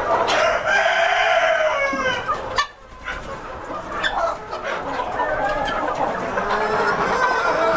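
A White Sultan rooster crows once, a drawn-out call that rises and then falls over about two seconds near the start. After a brief lull the flock clucks and chatters in short calls.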